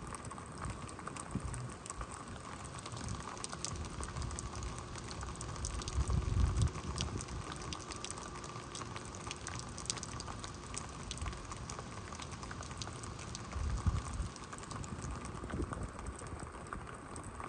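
Rain falling steadily, with many separate drops ticking sharply on nearby surfaces, and a few low rumbling swells about six and fourteen seconds in.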